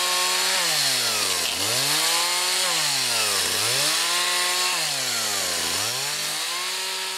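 Chainsaw engine revving up and down: it holds at high revs for about a second, drops back toward idle, then climbs again, about three times over.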